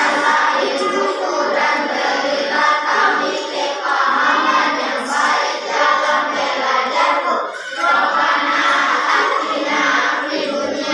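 A class of schoolchildren chanting a prayer aloud together in unison, many young voices in a steady sing-song recitation.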